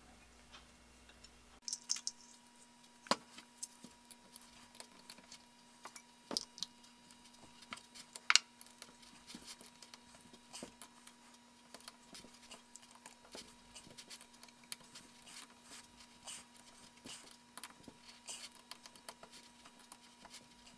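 Scattered light metallic clicks and ticks of socket head cap screws being spun in by hand through a cast-iron three-jaw lathe chuck into its adapter plate, a few clicks louder than the rest.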